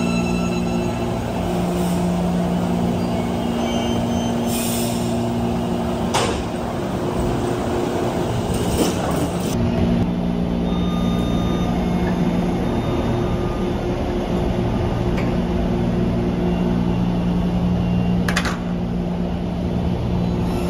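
Electric metro train running: a steady traction hum made of several held tones, with a few sharp clicks and knocks.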